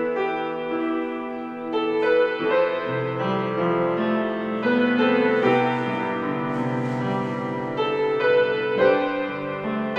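Solo piano playing a slow piece: a melody over sustained chords, with the notes and chords changing about every half second to a second.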